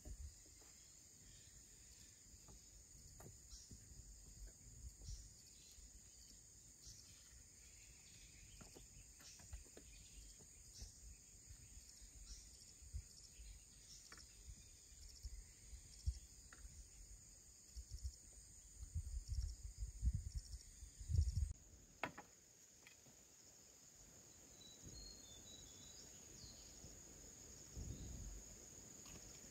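Faint outdoor ambience dominated by a steady high-pitched insect chorus, with a few soft knocks and a stretch of low rumbling about two-thirds of the way in. The background changes abruptly shortly after that.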